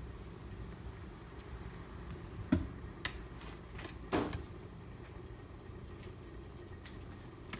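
Knife cutting through set pine-nut barfi on a plastic-wrap-lined baking tray. A few soft knocks come about two and a half and three seconds in, and a short scrape about four seconds in, over a steady low hum.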